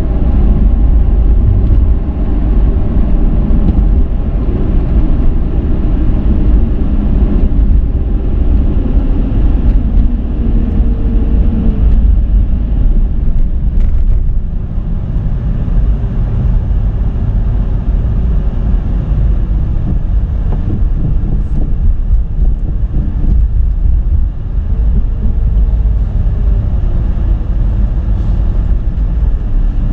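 Cabin noise of a 2007 Dodge Charger driving on a highway: a steady low rumble of engine, tyres and road, with the engine note drifting up and down in pitch a few times.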